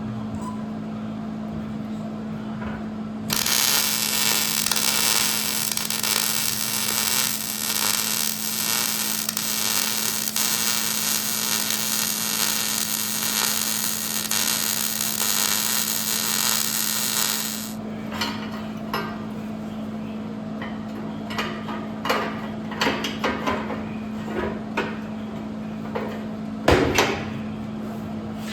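Electric welding arc crackling and hissing steadily for about fourteen seconds, beginning a few seconds in, over a steady electrical hum. Afterwards come a series of sharp metal taps and clicks.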